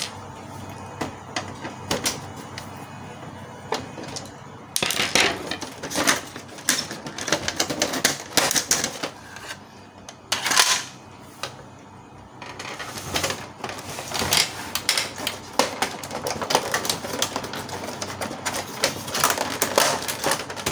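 Plastic clicks, snaps and clatter of a Canon MP287 inkjet printer's casing being taken apart by hand: clips snapping free and panels knocking as they are pried and lifted off. A few scattered clicks at first, then dense clattering from about five seconds in.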